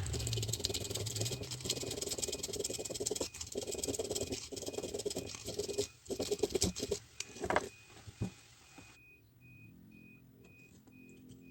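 Dense mechanical rattling and clattering that cuts off suddenly about nine seconds in, followed by a faint high electronic beep repeating about twice a second.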